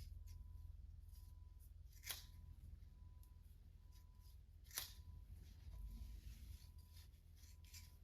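Faint snips of scissors cutting through braids, with two sharper snips about two and five seconds in.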